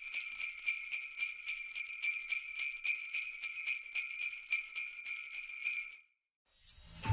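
Jingle bells shaken in a steady rhythm, about four to five shakes a second, then stopping; music with a bass beat starts near the end.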